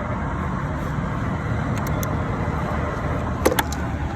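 Steady low motor-vehicle rumble, with two quick metallic clinks about three and a half seconds in, typical of a socket being fitted onto a bolt.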